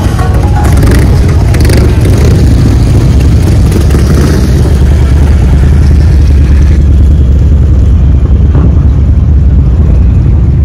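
Harley-Davidson touring motorcycles' V-twin engines rumbling steadily as the bikes ride slowly through a crowd.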